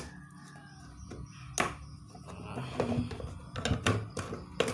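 Plastic base housing of a Philips blender being pried apart with a flat screwdriver: sharp plastic clicks with handling and scraping, one strong click a bit over a second in and several more near the end as the housing comes loose.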